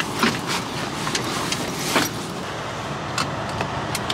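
Steady noise inside a car cabin, crossed by several short rustles and knocks from the camera being handled against the seats, the loudest about a quarter of a second in and again about two seconds in.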